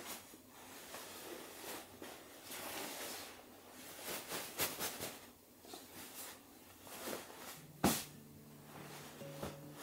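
Bedding rustling as a bed is made by hand: the duvet and pillow are swished and smoothed in a series of soft bursts. A single sharp knock sounds about eight seconds in.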